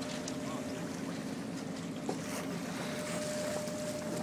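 Sailboat under way: steady wind and water noise with a low, even hum and a few faint clicks.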